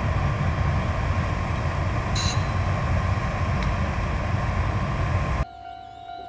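A Chichibu Railway Deki-class electric locomotive freight train passing with a loud rumble of wheels on rails and a steady whine, and a short high screech about two seconds in. The sound cuts off abruptly near the end, leaving a much quieter steady tone.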